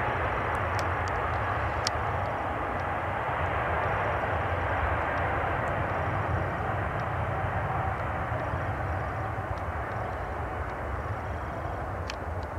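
Jet airliner engines heard from outside: a loud, steady rushing noise over a low rumble that slowly fades over the last few seconds.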